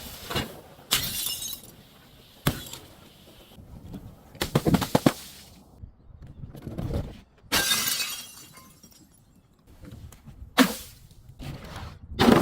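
Glass bottles being smashed: a string of separate crashes with high-pitched shattering, about eight in all, the loudest cluster about four to five seconds in and another bright shatter about eight seconds in.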